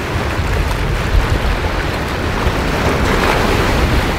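Small surf waves breaking and washing up a sandy beach, with steady wind buffeting the microphone as a low rumble.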